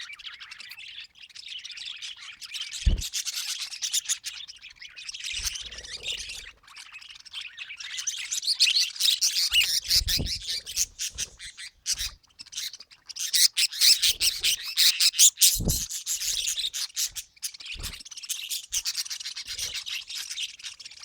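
Budgerigars chattering and warbling in a dense, scratchy stream of rapid chirps, with a few soft low knocks scattered through.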